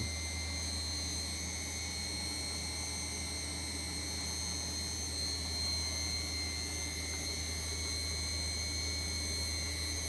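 Bosch Maxx 6 VarioPerfect washing machine on its spin cycle: a steady hum from the motor and drum with a steady high whistle from the motor's newly replaced carbon brushes, which are still bedding in. The whistle is normal after a brush change.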